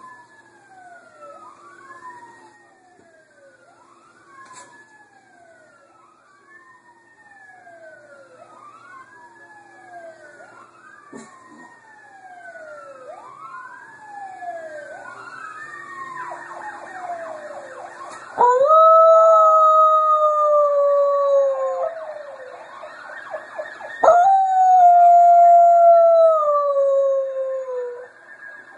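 A dog howling at an emergency-vehicle siren. The siren wails up and down over and over, growing louder. Then the dog lets out two long howls, each sliding slowly down in pitch, about six seconds apart, both much louder than the siren.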